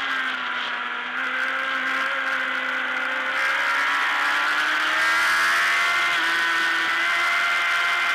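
Racing motorcycle engine at high revs, heard from onboard the bike, with wind rush. The engine note holds steady for about three seconds, then climbs gradually as the revs rise.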